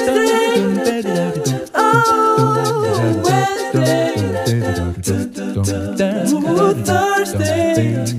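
Music: a song with a sung vocal melody over a steady pulsing bass beat.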